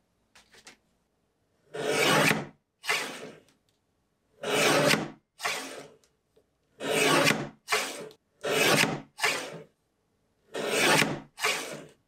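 Arm-type guillotine paper trimmer cutting through paper: about ten short rasping shearing strokes in groups of two to four, with pauses between the groups.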